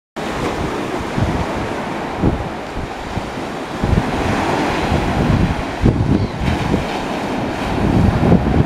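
Small waves breaking and washing on a sandy beach, with wind buffeting the microphone in uneven gusts.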